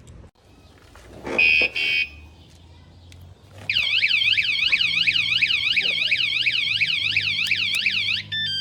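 Wsdcam 113 dB wireless vibration motorcycle alarm set off by its motion sensor: two short loud chirps, then a fast warbling siren sweeping up and down about three times a second, ending in a few short stepped beeps. It shows the sensor is sensitive enough to trip on a big motorcycle.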